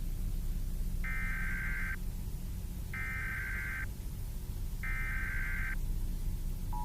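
Emergency Alert System SAME header: three harsh digital data bursts, each just under a second long, about a second apart, over a steady low background noise. Right at the end the steady two-tone EAS attention signal begins.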